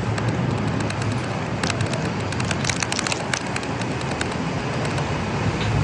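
Steady road and engine noise of a moving car, with a low hum and many small scattered clicks and crackles over it.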